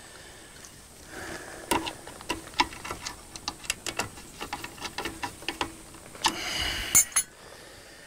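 A run of small irregular clicks and ticks from hand work with a small tool at a well pump pressure switch, ending in a brief rustle and two sharper clicks.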